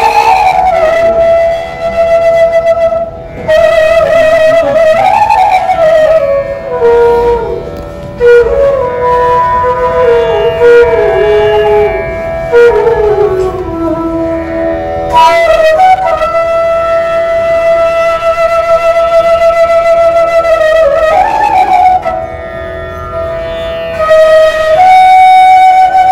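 Bansuri, the Indian bamboo side-blown flute, playing a slow solo melody of long held notes joined by bending slides and ornaments, with brief breaths between phrases.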